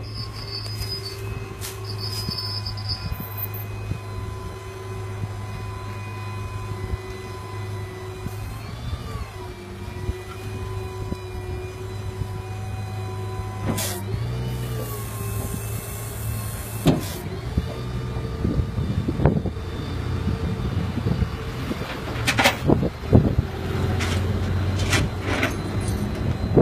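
Flatbed tow truck's engine running with a steady hum and whine, the pitch shifting briefly about 9 and 14 seconds in. Several sharp clunks come in the last third.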